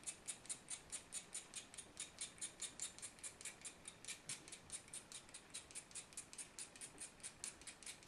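A scalpel blade scraping a stick of white chalk in quick, even, light strokes, about five a second, shaving off fine chalk dust.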